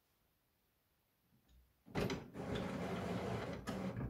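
HP OfficeJet Pro all-in-one printer starting a copy. After a faint knock, its scanner mechanism whirs steadily for about two seconds as the scan head moves under the glass.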